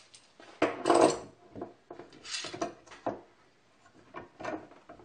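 Steel bar clamps being set and tightened on a wooden cutting board: a string of irregular metal clanks and wooden knocks, the loudest about a second in.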